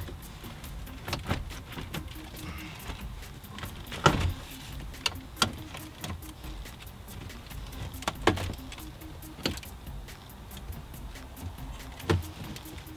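Scattered sharp clicks and knocks of plastic and metal as an Infiniti G35's factory radio and navigation unit is slowly worked out of the dash and its wiring harness connectors handled.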